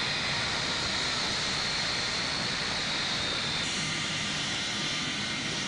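Jet aircraft engine noise: a steady rush with a high whine that slowly drops in pitch and fades out about three and a half seconds in.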